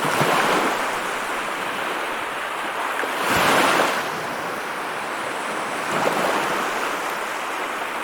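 Sea waves breaking and washing in a steady roar of surf. Three waves swell up, near the start, about three and a half seconds in, and about six seconds in, the middle one the loudest.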